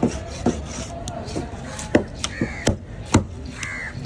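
Heavy fish knife chopping through barracuda flesh and bone into a wooden cutting board, five or six sharp chops at uneven spacing. Crows caw in the background.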